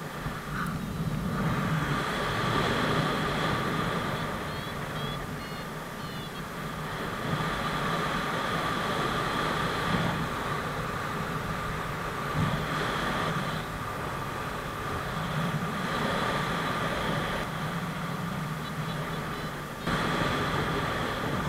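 Wind rushing over the camera microphone during paraglider flight, with a steady high tone and short electronic beeps from a flight variometer. The sound shifts abruptly in level several times.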